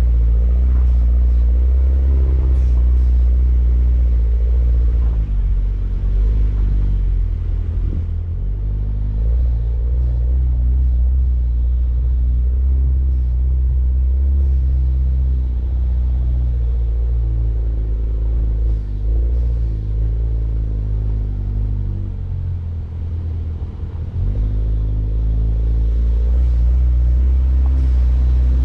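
Mini Cooper Countryman All4 driving, its engine running with a low, steady rumble whose pitch rises and falls gently with the throttle, easing off briefly about three quarters of the way in.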